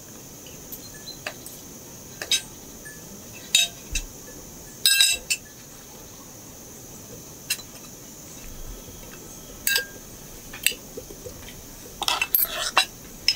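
Metal cutlery clinking and scraping on ceramic plates as food is cut and served: scattered short clinks, with a busier run near the end.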